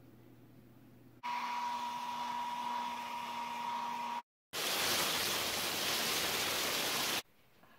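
Hail falling hard on a deck and metal patio furniture, a loud dense hiss for about three seconds that cuts off suddenly near the end. Before it, after a faint room hum, comes about three seconds of steady machine noise with a high whine.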